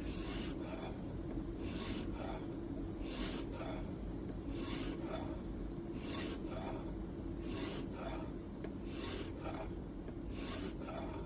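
A 1000-grit sharpening stone rasping along the edge of a knife's N690 steel blade in a guided sharpening system. It goes in regular back-and-forth strokes, about one every three-quarters of a second.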